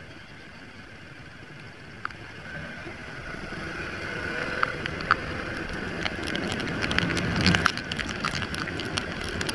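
Wind and rain noise on a motorcycle-mounted camera's microphone while riding in heavy rain, with raindrops tapping on it. The noise grows gradually louder, and the tapping thickens in the second half.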